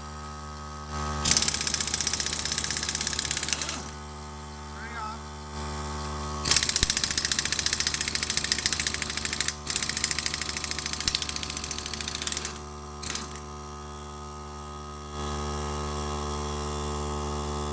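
Air impact wrench hammering lug nuts off in three bursts of a few seconds each, plus a short blip, over the steady drone of a 3-gallon oilless pancake compressor running to recharge as the air pressure drops.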